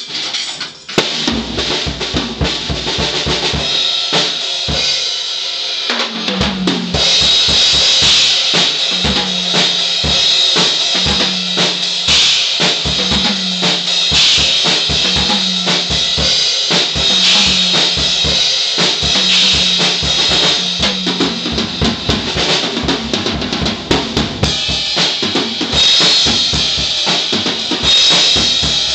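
A Tama drum kit played freely: bass drum, snare and cymbals in a busy groove, with a low tom note ringing about once a second from about six seconds in.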